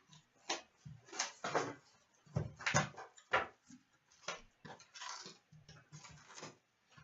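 Trading card box and pack wrappers being handled and opened: a run of short, irregular crinkles and rustles.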